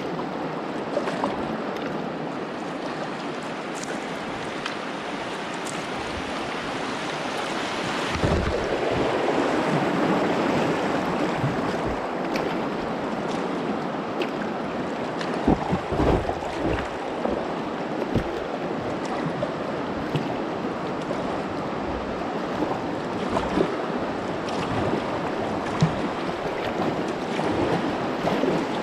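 Whitewater rapids rushing steadily around a kayak, the wash growing louder about eight seconds in, with occasional low thumps of wind buffeting the microphone.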